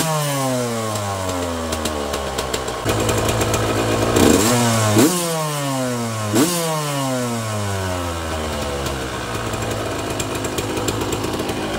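Yamaha YZ125 single-cylinder two-stroke engine on its stand, blipped by hand through an FMF spark-arrestor silencer. The revs jump sharply near the start and three more times around the middle, each time dropping back toward idle, and the engine idles toward the end.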